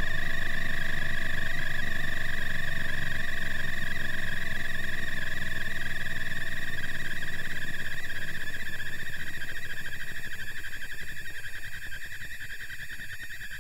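Inductive-pickup recording of a JR East E2-1000 Series Shinkansen's 3-level IGBT VVVF inverter and traction motor during regenerative braking in asynchronous dipolar PWM mode. It is a steady high electronic tone near 2 kHz over a low hum, and it slowly weakens as the train slows, the hum thinning out over the last few seconds.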